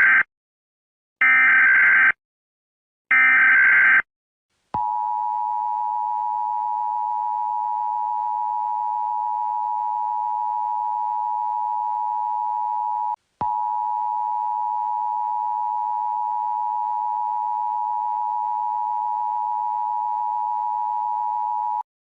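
Emergency Alert System tones: the tail of one SAME header data burst and then two more, each a harsh digital screech under a second long, about a second apart. Then comes the EAS two-tone attention signal, a steady buzzing chord held for about 17 seconds with a brief break partway through.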